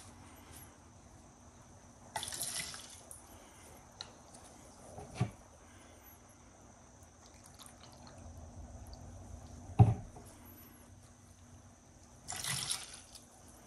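Isopropyl alcohol poured from its bottle in two short pours, about two seconds in and again near the end. A single sharp knock comes a little before the second pour.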